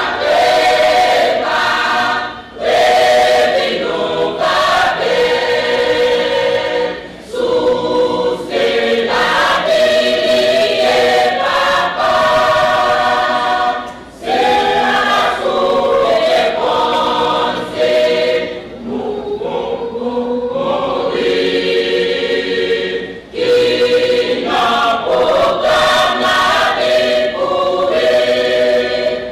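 Choir singing together in long phrases, each separated by a short break.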